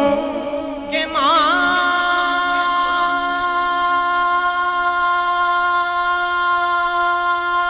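Man singing a naat into a microphone: a short wavering phrase with vibrato, then from about a second and a half in he holds one long, steady note.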